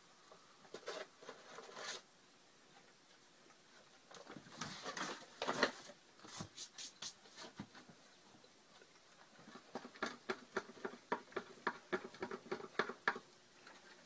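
Flour poured from a bag into a stainless steel mixing bowl, the bag rustling, then a spoon stirring thick, stiffening bread dough, scraping and knocking against the bowl in quick strokes of about three a second near the end.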